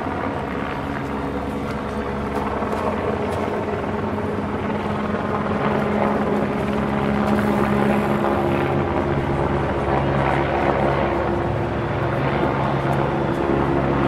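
Military helicopter flying overhead: a steady rotor and turbine sound with a constant low hum, growing gradually louder.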